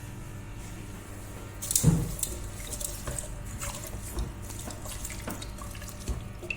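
Water sloshing in a cooking pot with a few clinks of a utensil and a short clatter about two seconds in, as beef, spices and water are handled before pressure cooking.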